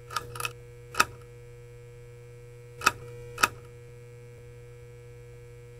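Steady electrical hum of a neon sign, broken by five sharp zapping crackles in the first three and a half seconds as the tubes flicker on.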